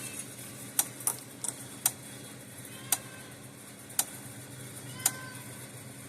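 American Farmworks electric fence charger pulsing, each high-voltage pulse snapping across a spark gap about once a second with a few fainter ticks between. The repaired unit is working again, its output put at around 7,000 volts.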